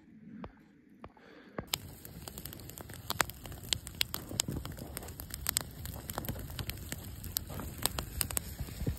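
Wood campfire crackling with frequent sharp pops, starting suddenly about a second and a half in after a quiet opening.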